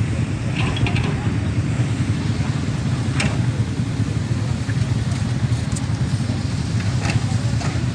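A vehicle engine running steadily with a low rumble, with a few faint short knocks over it.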